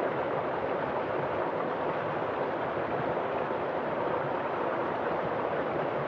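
Shallow rocky stream running steadily, its water rushing through a small cascade between boulders in an even, unbroken wash.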